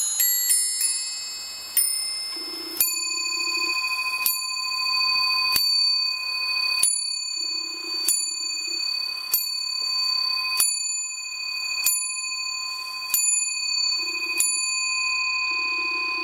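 Sinclair Harding three-train musical skeleton clock: the last notes of its tune on the nest of bells, then the strike train sounding the hour on a single bell, ten even blows about one and a third seconds apart, each left ringing.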